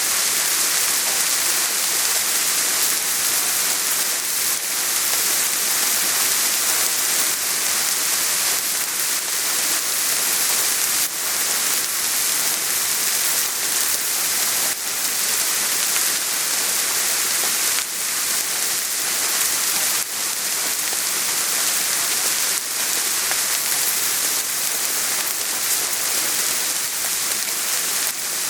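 Steady rain falling, an even hiss strongest in the high range, with scattered faint drop ticks.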